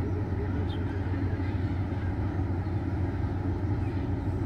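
Steady low engine rumble from a large cruise ship under way at slow speed.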